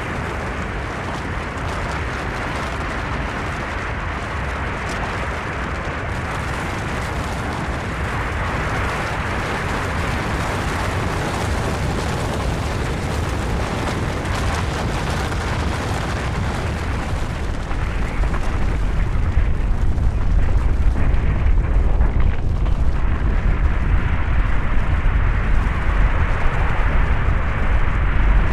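Snow avalanche: a continuous rushing rumble that slowly builds, its deep low rumble growing stronger about two-thirds of the way through.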